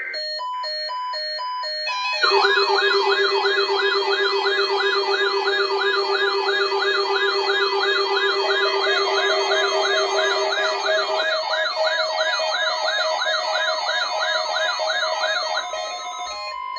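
Weather alert radio receivers sounding their alarms for the weekly test: alternating beeps, then several overlapping warbling siren tones rising and falling about three times a second over steady tones. The warbling stops shortly before the end, leaving steady tones.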